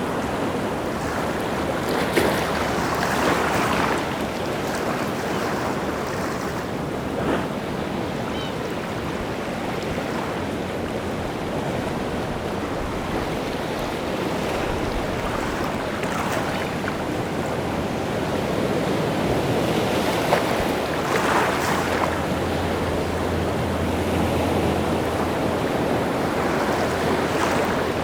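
Rough sea surf breaking and washing on the shore, a continuous roar with surges and occasional sharper crashes, with wind in the background.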